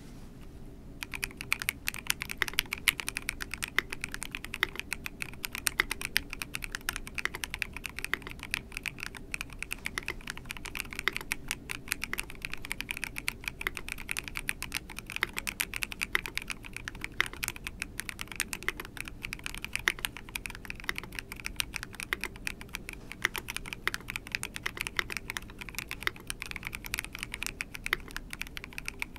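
Continuous fast typing on a Monstar Gear Aqua 67 mechanical keyboard with a transparent housing and clear keycaps: a dense, steady run of key clicks that starts about a second in.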